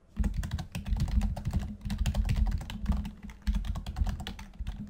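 Fast typing on a computer keyboard: a quick, unbroken run of key clicks, each with a dull low thud, that thins out and stops near the end.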